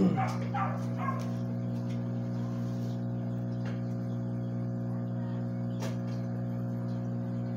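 A steady low droning hum with even overtones holds at one level throughout. A brief gliding whine comes in the first second, and two faint clicks come later.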